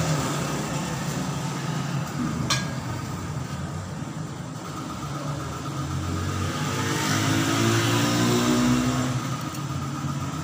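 A motor vehicle engine runs steadily, its pitch rising and falling for a couple of seconds about seven seconds in. A single sharp click comes about two and a half seconds in.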